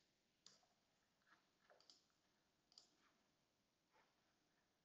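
Near silence, with about six faint, scattered clicks of a computer mouse and keyboard.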